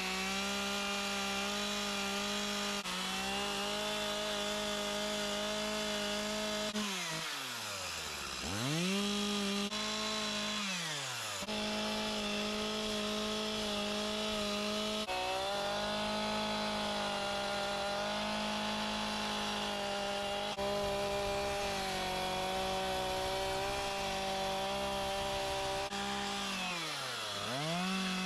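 Two-stroke chainsaw running at high revs while carving detail cuts into wood. Its engine note drops steeply and climbs back as the throttle is let off and opened again: twice about a third of the way in, and once more near the end.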